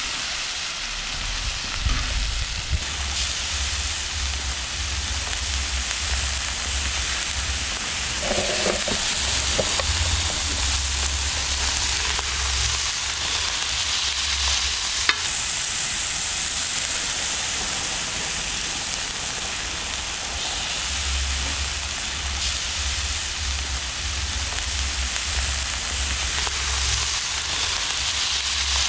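Liver pieces and red pepper strips sizzling on a hot iron sac griddle over wood embers, a steady frying hiss, with a low rumble coming and going underneath.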